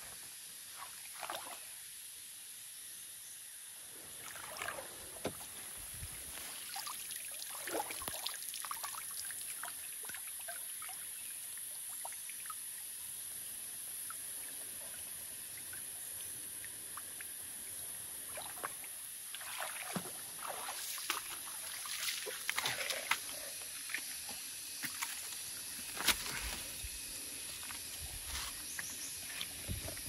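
Water sloshing and splashing in irregular bursts, busiest in the second half, over a steady high hiss.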